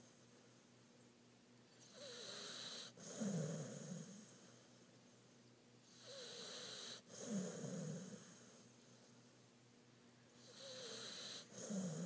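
Pit bull snoring really loud in its sleep: three slow breaths about four seconds apart. Each is a hissing stretch followed by a louder snore that falls in pitch.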